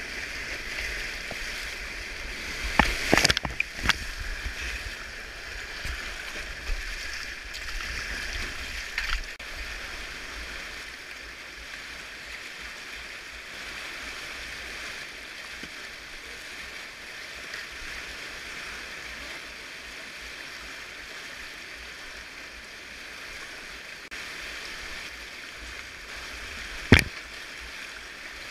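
Whitewater rapids rushing, a steady wash of fast river water over rocks. Sharp knocks break through about three seconds in and again near the end.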